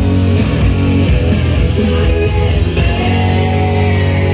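Guitar music played back over JBL 4312 speakers driven by a Sony TA-3650 amplifier, with steady, held bass notes.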